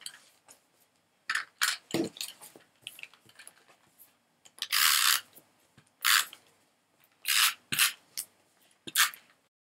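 Snail adhesive tape runner drawn across card stock in several short strokes, each a brief rasping scrape, with paper handling clicks and rustles between them.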